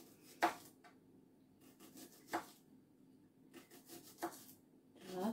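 Kitchen knife slicing a red onion into thin half-rings on a plastic cutting board. A few separate sharp cuts, the loudest about every two seconds, with fainter cuts between.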